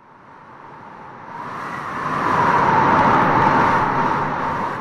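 Whoosh sound effect: a long swell of rushing noise that builds to a peak about three seconds in and then dies away.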